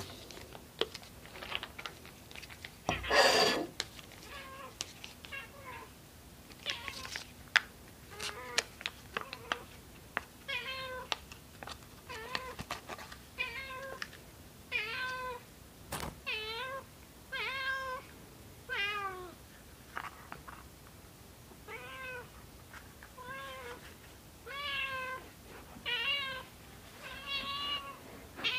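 A black-and-white tuxedo cat meowing over and over, begging, with calls that rise then fall in pitch and come about once a second, more regular and clearer from about ten seconds in. A brief loud noise about three seconds in is the loudest thing.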